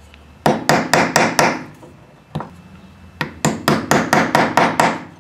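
Small mallet tapping a pointed punch into a carved wooden lure body, about four sharp taps a second: five quick taps, a lone tap, then a run of about nine. The punch is marking a starter hole so the drill bit can start the eye socket.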